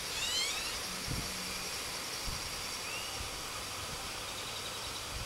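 Outdoor garden ambience under a steady hiss, with a bird's quick rising chirps near the start and one more chirp about three seconds in; a few soft low knocks from the camcorder being handled.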